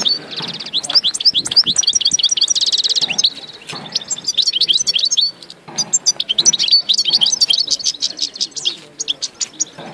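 European goldfinch singing: rapid twittering chirps mixed with buzzy trills, in two runs with a quieter pause of about two seconds near the middle.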